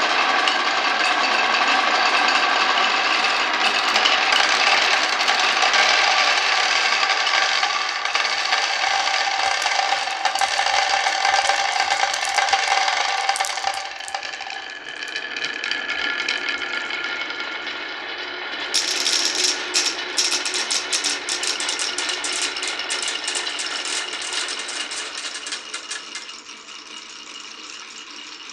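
Many glass marbles rolling and rattling along a wooden marble run: a dense, continuous clatter that thins out about halfway through, then, from about two-thirds of the way in, a quick run of sharp clicks as marbles knock against each other and the wooden pieces.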